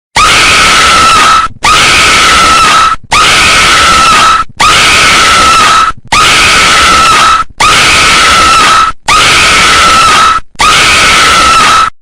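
Horror sound effect of a possessed girl's raspy, harsh scream, repeated eight times in a row: identical screams of about a second and a half each at one held pitch, with brief gaps between them.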